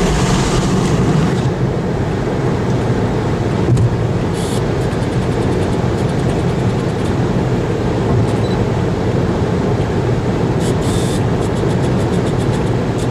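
Steady low rumble of a vehicle driving at speed, heard from inside the cabin.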